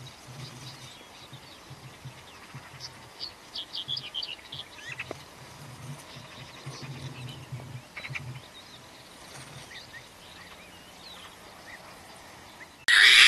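Faint outdoor ambience of scattered bird chirps and twitters over an on-off low hum, with a sudden loud noise breaking in right at the end.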